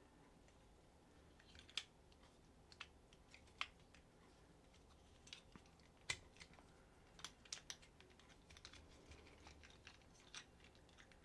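Faint, scattered clicks and taps of the plastic parts of a Transformers Siege Ratchet action figure being handled, folded and snapped into place, about a dozen at irregular intervals.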